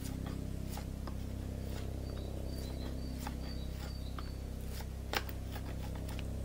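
Knife shaving the bark off a hazel spindle: separate short scraping strokes, the sharpest about five seconds in, over a steady low hum.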